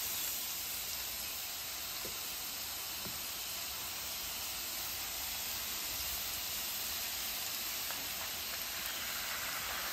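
Butter sizzling on the hot steel top of a Pit Boss flat-top griddle, a steady hiss. Beaten eggs are poured into the sizzling butter near the end.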